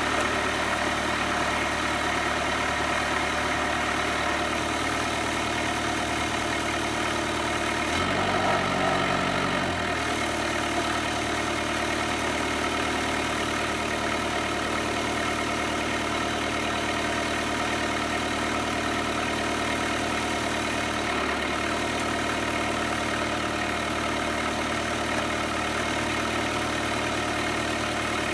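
Kubota B7800 compact tractor's diesel engine idling steadily, with a brief change in its note about eight seconds in that lasts about two seconds.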